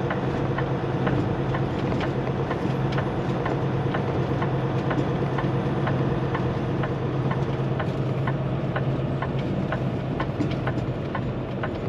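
Semi-truck diesel engine running steadily, heard from inside the cab, with a regular ticking over it, typical of the turn signal flashing for a right turn.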